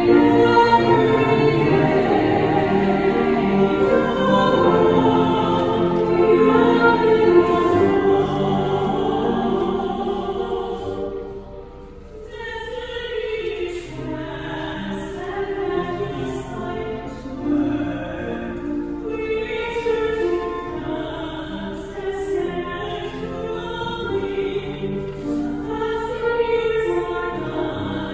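Music with choir-like singing in long held notes. It drops to a quieter passage about twelve seconds in, then carries on.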